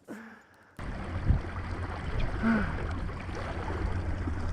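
Water rushing and splashing around a kayak over a low steady rumble, starting abruptly about a second in, as a hooked fish is fought at the kayak's side.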